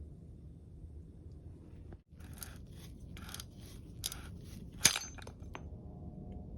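Rotary pipe cutter scoring a titanium handlebar tube, a run of short metal-on-metal scraping strokes at about two a second as the cutter is turned around the tube. One sharp click is the loudest sound, followed by a couple of smaller ticks.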